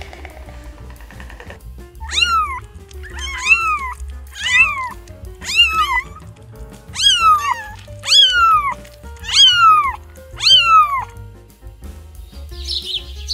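An animal calling repeatedly: about eight high, clear calls roughly a second apart, each rising and then falling in pitch, over background music.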